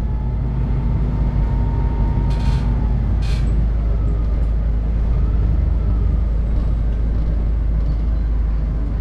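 Steady low rumble of a city bus in motion, its engine and tyres heard from on board, with two short hisses about two and a half and three seconds in.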